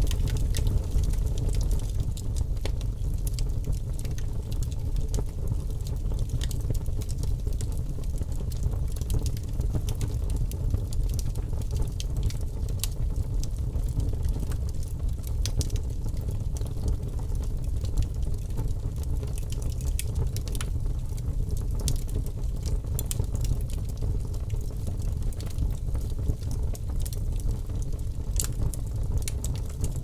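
Wood fire burning, with a steady low rumble and frequent sharp crackles and pops from the burning logs.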